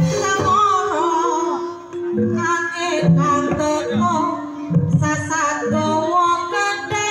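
Live East Javanese jaranan gamelan music: low drum beats about every half second under held tones and a high, bending melodic line, with singing.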